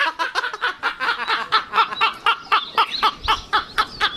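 A bird's rapid, regular chattering: short high-pitched chirps repeated about seven times a second, without a break.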